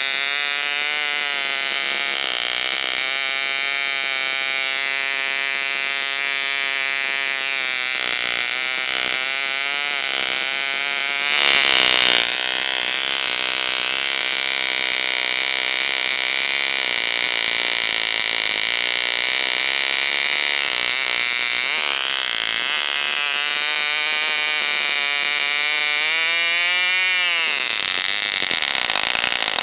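1973 Fox 29 glow-plug model engine running unmuffled on a test stand, spinning a 9x6 propeller at about 7,500 to 8,000 rpm: a loud, high-pitched buzz whose pitch wanders as the high-speed needle valve is adjusted. About eleven seconds in it surges briefly louder, and near the end the pitch climbs sharply and then breaks off.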